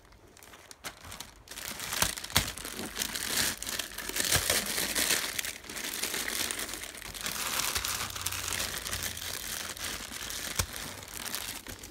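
Thin black plastic shipping bag crinkling and rustling as it is grabbed and pushed around. It starts about a second and a half in and runs on with small crackles.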